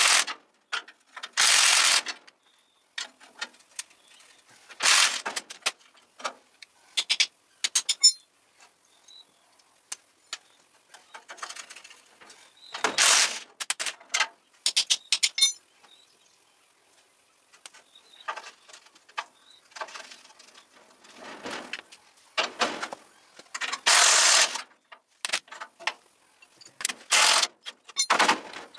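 Cordless impact wrench hammering in a series of short bursts, each about a second long, as it undoes the bolts holding an old cross member to the steel chassis rails. Between bursts there are clinks and clatter of metal tools.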